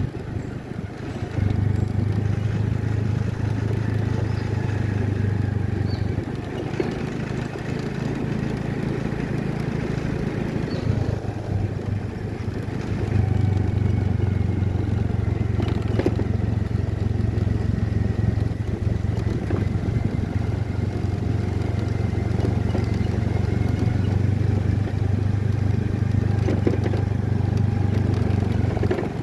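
Waterfall: continuous rushing water with a heavy, deep rumble, a little weaker from about six to thirteen seconds in.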